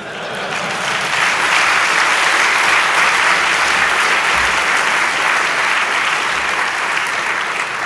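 Audience applauding, building over the first second, then holding steady.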